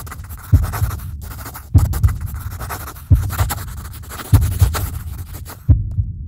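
Heartbeat sound effect: five deep double thumps, about one every second and a quarter, under a scratchy crackling noise that cuts off near the end.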